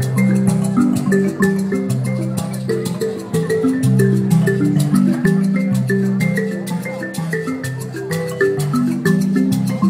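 Mbira played inside calabash gourd resonators, cycling through interlocking, repeating plucked melodies. A steady run of crisp shaker clicks, typical of hosho gourd rattles, keeps the beat.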